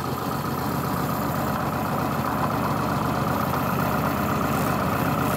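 Lada four-cylinder petrol engine idling steadily, heard from underneath the car, running with its sump drained of oil.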